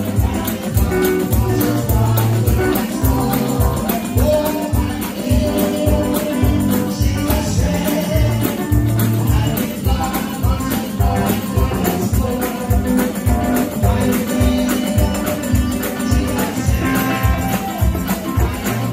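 Live gospel music: a song sung through a microphone with congregation voices, backed by electric guitar, keyboard and tambourine over a steady beat.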